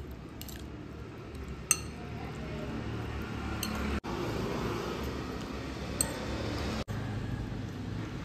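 Metal fork stirring cucumber ribbons through a thick yogurt dressing in a ceramic bowl: soft wet squishing, with two sharp clinks of the fork against the bowl, about a second and a half in and again about six seconds in.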